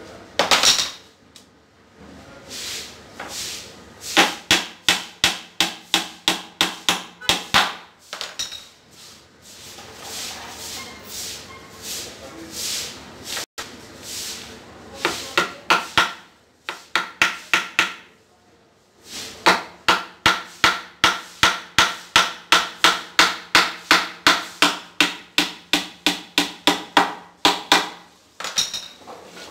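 Hammer driving nails into a laminated wooden board panel: runs of quick blows, about three a second, with short pauses between the runs.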